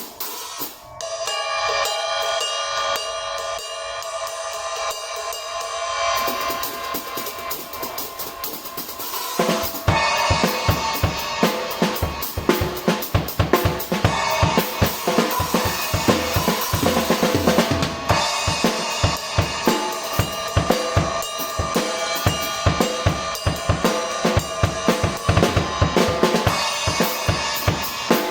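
Armada Achilles AXL cymbal ringing with a long sustain after being struck, alone for about the first nine seconds. Then a drum kit comes in, with bass drum and snare under steady, rhythmic cymbal strokes.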